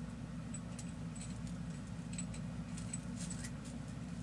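Light metallic clicks and clinks of a 1917 .45 ACP revolver being handled and loaded with a single round, scattered irregularly over a steady low background hum.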